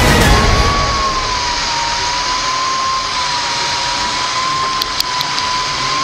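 Winch motor whining steadily under load, its pitch wavering gently up and down, with a few light clicks about five seconds in.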